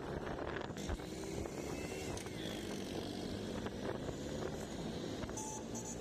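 Auto-rickshaw engine running and road noise while riding in traffic, with a short beep near the end.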